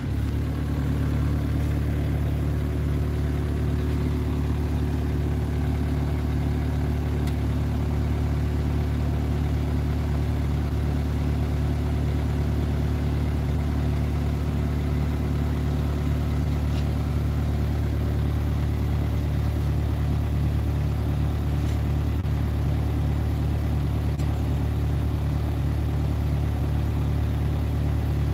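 Hyundai HW60 wheeled excavator's diesel engine idling steadily.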